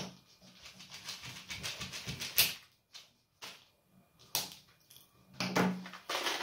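Metal tweezers scratching and clicking against a plastic blister card of button-cell batteries as an AG10 cell is pried out. A run of small clicks and scratches, with sharper clicks about two and a half and four and a half seconds in.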